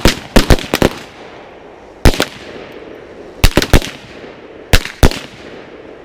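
Several guns fired in quick volleys: four rapid shots at the start, two about two seconds in, four more about three and a half seconds in, and two near the end, each crack with a short echo.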